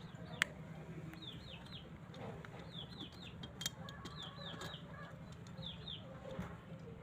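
Birds chirping in short falling calls, in clusters of two or three repeated every second or so, over a steady low hum, with a few sharp clicks, the loudest just under half a second in.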